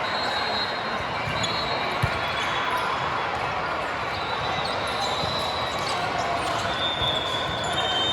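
Gym court sounds: sneakers squeaking on the floor several times and a single ball thump about two seconds in, over a steady wash of crowd and play noise in a large hall.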